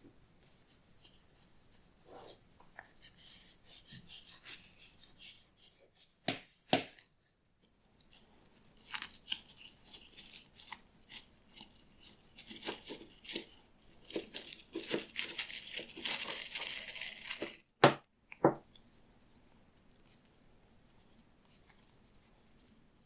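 Hand work on an old leather belt: irregular rubbing, scraping and rustling in stretches, with a few sharp knocks about six and a half seconds in and again near eighteen seconds.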